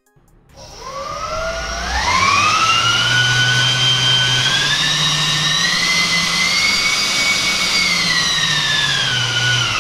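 Counter-rotating dual-propeller 3D-printed 100 mm electric ducted fan, driven by two DYS 1700 KV brushless motors on a 3S battery, spooling up from rest. It rises in steps to a loud, high-pitched whine with a rush of air, holds there, and winds down near the end. This is a thrust-test run up to about 73 amps, the set current limit, short of full throttle.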